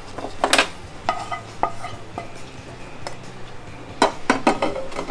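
Cookware clatter as a nonstick pan is tipped over a serving bowl and set back on a gas stove's grate, with a wooden spatula knocking against it. A few sharp knocks and clinks with a short ring, the loudest about half a second in and a quick run of them near the end.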